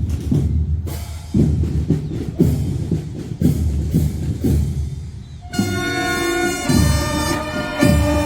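Fanfare band playing: bass and snare drums beat a march rhythm at about two strokes a second, then the brass comes in with loud held chords about five and a half seconds in, the drums carrying on beneath.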